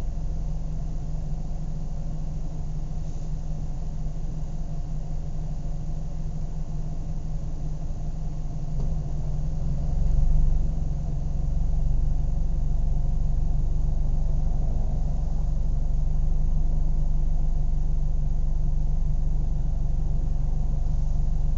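Car engine idling steadily. About halfway through it briefly swells, then settles into a slightly louder, steady run.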